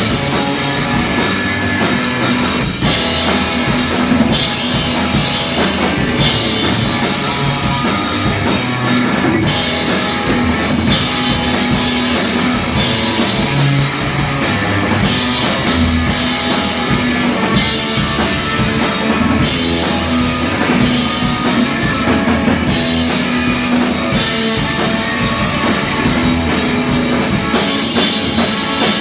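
Rock band playing live, loud and steady: drum kit with electric guitar.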